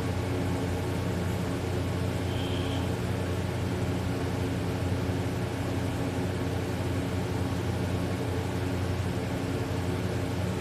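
A steady low mechanical hum, made of several even tones over a haze of noise, with no rise and fall. A short faint high tone sounds about two seconds in.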